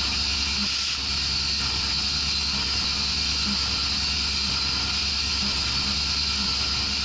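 Home-made CNC milling machine's spindle running while the end mill cuts a metal plate: a steady, even machining noise with a high-pitched hiss.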